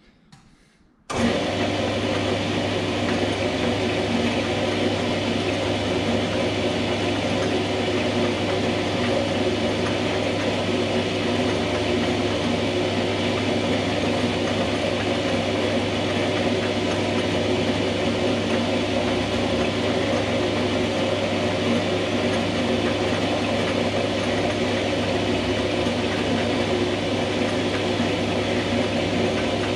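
Small metal lathe starting up about a second in and then running steadily, with a constant low hum, its chuck spinning while a boring bar cuts a 45-degree angle in the workpiece.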